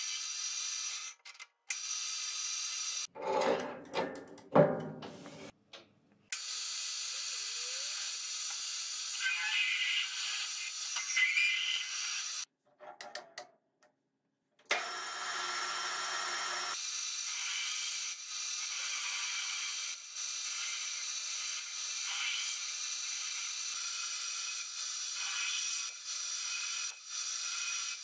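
Small metal lathe running with a steady whine, in short edited pieces that cut in and out abruptly. Loud clunks of metal parts being handled come a few seconds in, and bursts of cutting noise follow.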